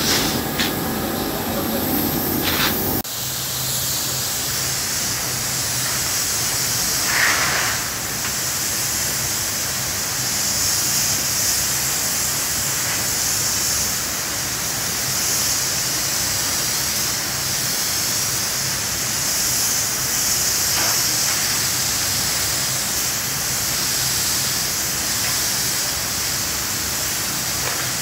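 Gelcoat spray gun hissing steadily as it sprays gelcoat, with a low steady hum underneath; the steady hiss sets in about three seconds in, after a short stretch of other, busier noise.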